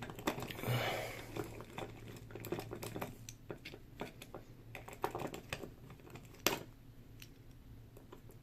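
Light, irregular clicks and taps of metal on metal as an old brass Yale & Towne safe deposit box lock is handled and taken apart.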